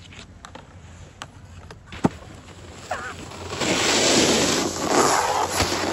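Snowboard edge scraping hard over packed snow for about two seconds from halfway through, as a rider skids to a stop close by. There is a sharp click about two seconds in.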